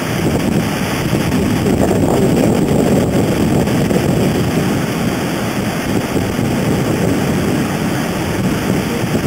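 Wind buffeting the microphone over the rush of ocean surf, a loud, steady noise with no distinct events.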